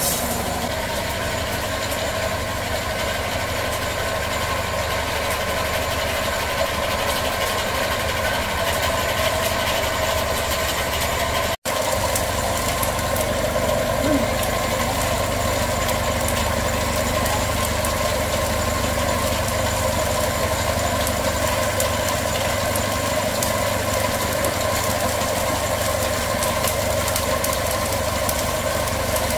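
Electric-motor-driven rice puffing extruder running steadily with a constant mechanical hum while it pushes out a continuous stick of puffed rice.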